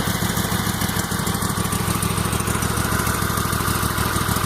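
Riding lawn mower's small engine running steadily at low speed.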